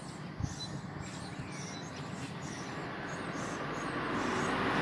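A car approaching along the road, its engine and tyre noise rising steadily through the second half. Faint high bird chirps repeat in the background.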